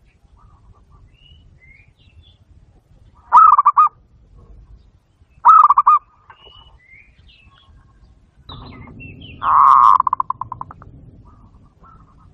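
Zebra dove (perkutut) cooing: two short, rapidly pulsed coos about two seconds apart, then a longer, louder coo whose pulses trail off near the end. Faint high chirps come between the coos.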